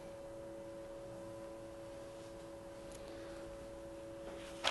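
Quiet room tone with a faint steady electrical hum made of a few held pure tones, and a short click near the end.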